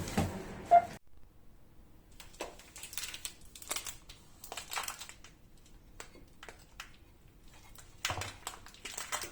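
Scattered light taps, clicks and rustles of objects being handled, with a sharp clink just under a second in and a slightly louder cluster of knocks near the end.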